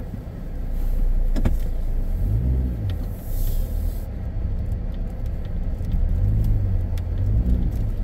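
Jeep engine running and tyres on a muddy dirt track, heard from inside the cab as the Jeep reverses and turns around; the engine note swells twice. A single sharp knock about a second and a half in.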